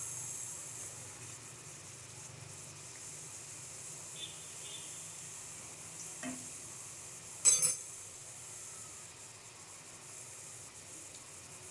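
Rounds of papdi dough sizzling steadily as they deep-fry in oil in an iron kadai over a medium flame. About seven and a half seconds in, the frying spoon knocks sharply against the pan.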